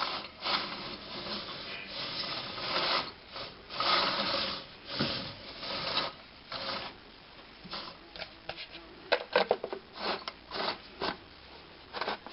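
Irregular scraping and rustling handling noises from hand work on workshop parts, with a cluster of short sharp clicks and taps about eight to eleven seconds in.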